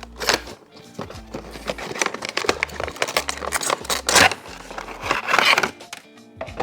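Background music with sustained notes over a low bass line, mixed with handling noises from toy packaging: sharp clicks and crinkling, rustling surges of plastic and cardboard, the loudest about four seconds in and again near the end.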